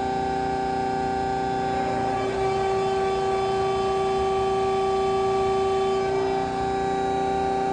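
Schwarze-Robitec CNC tube bender running with a steady, many-toned whine; for about four seconds mid-way the tone shifts and grows slightly louder as the machine goes through a motion under load.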